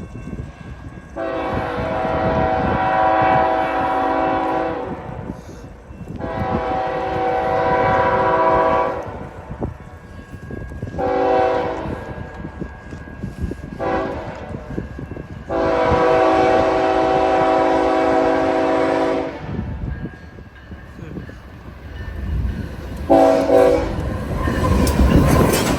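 BNSF freight locomotive's multi-chime air horn sounding four blasts, long, long, shorter, long, the pattern of the grade-crossing signal, then one brief extra blast. Near the end the rumble and wheel noise of the approaching train grow loud.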